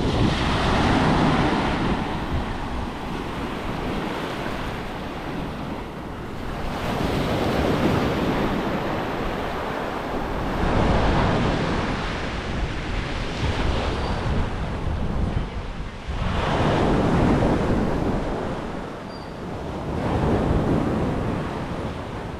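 Small ocean waves breaking and washing up over the shore, swelling and ebbing about every three to four seconds, with wind rumbling on the microphone.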